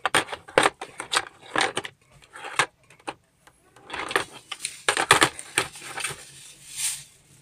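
Irregular hard-plastic clicks, knocks and rattles as a handheld two-way radio and its rubber antenna are handled and fitted together. The clicks come in a busy run at first, pause briefly, then cluster again a little past the middle.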